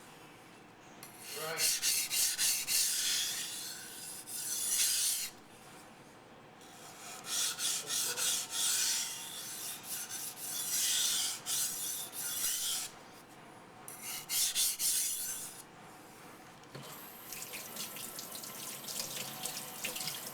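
Steel knife blade scraped back and forth across a 180-grit waterstone in quick rhythmic strokes, in three spells split by short pauses, while the bevel is ground and shaped. Near the end the strokes give way to a fainter, finer steady rustle.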